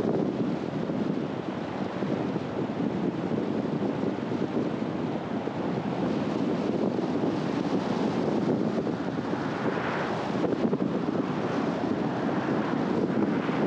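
Steady road and wind noise from a moving car: a continuous low rush of tyres and air with no distinct events, lifting slightly in brightness about ten seconds in.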